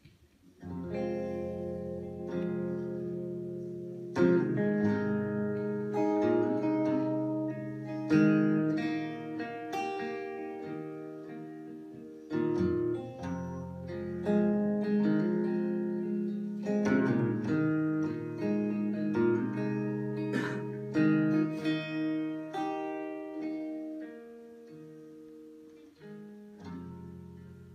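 Hollow-body electric guitar playing a song's instrumental intro: chords and single notes struck and left to ring, starting about a second in.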